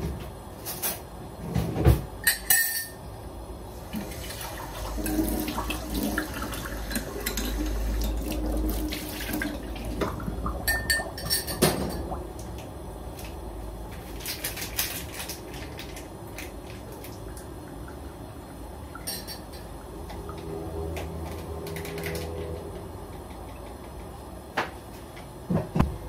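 Kitchen work: dishes, pans and utensils clinking and knocking at irregular intervals.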